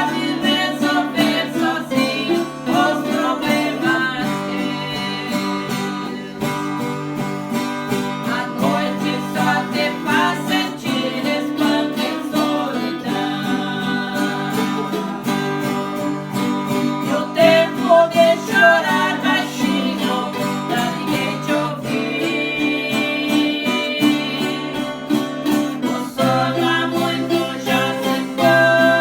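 Acoustic guitar strummed steadily, accompanying voices singing a worship song.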